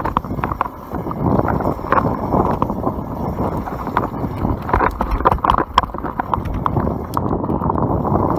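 YT Capra mountain bike riding fast down a dirt singletrack: a continuous rumble of the tyres over the ground, with irregular knocks and rattles of the bike over bumps.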